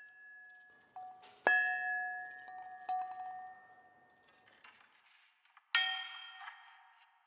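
Small metal percussion, like little cymbals or bells, struck several times, each stroke ringing on and fading away. There is a light stroke about a second in, the loudest just after, another near three seconds, and a bright, shimmering one near six seconds.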